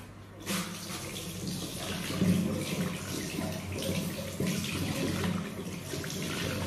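Water running from a tap, starting about half a second in and flowing steadily.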